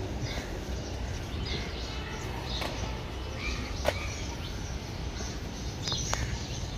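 Outdoor background noise of a narrow city lane: a steady low rumble with scattered short high chirps and a few sharp clicks, the loudest click about four seconds in.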